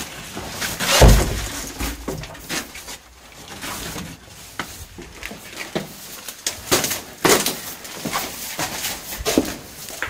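Footsteps crunching and scuffing over debris and scattered papers on the floor, in irregular knocks and rustles, with one heavy thump about a second in.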